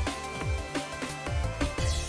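Background music, electronic, with a steady beat of deep kick-drum thumps and held synth tones.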